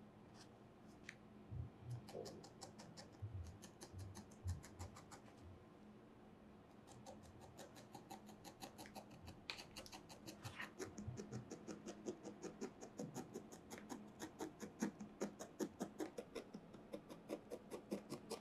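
Barbed felting needle stabbing repeatedly into a wool figure on a foam pad: a fast, even run of soft ticks at about five a second, broken by a pause near the middle. A few dull thumps in the first few seconds.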